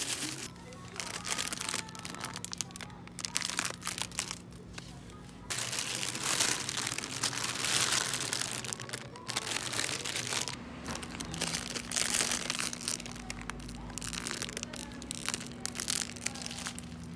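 Plastic produce wrapping and bags crinkling and crackling as they are handled, with a steady low hum underneath.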